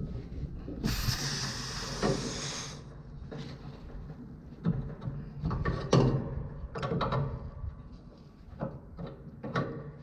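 Hand-tightening a threaded high-pressure switch onto its Schrader-valve fitting on an A/C condenser. A brief hiss lasts about two seconds near the start, then scattered metallic clicks and knocks from the wrench and fitting.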